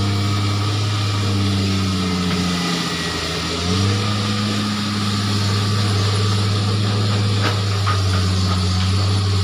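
Heavy diesel engine of log-loading machinery running steadily under load, its pitch sagging about two seconds in and picking back up with a brief surge near four seconds.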